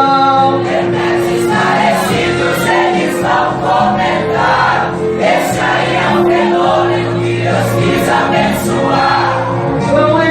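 A choir singing a gospel hymn, many voices in held notes over a steady instrumental backing.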